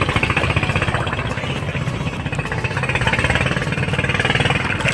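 Small boat engine of a motorized outrigger bangka running with a rapid, steady chugging beat.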